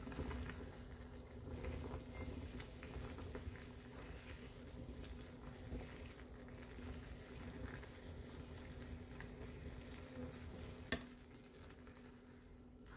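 Ramyeon boiling in a stainless-steel saucepan over a gas flame, bubbling steadily while metal tongs lift and drop the noodles, with a steady hum beneath. A single sharp clink comes near the end.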